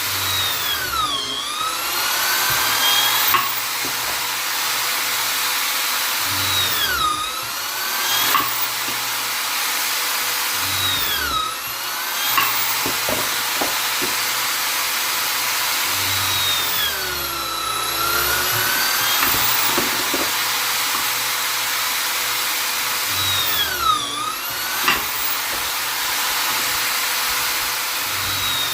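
Vonder drill/driver running continuously, a high motor whine whose pitch drops and climbs back every few seconds as the bit comes under load and frees up, as when drilling into wood.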